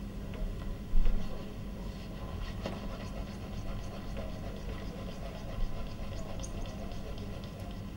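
Steady low rumble with one heavy thump about a second in, a lighter knock a little past halfway, and faint scattered taps.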